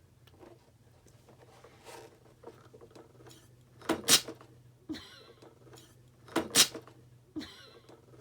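A balloon being blown up by mouth, in two strong puffs of breath about two and a half seconds apart. Between the puffs comes a short, fainter hiss with a slight squeak.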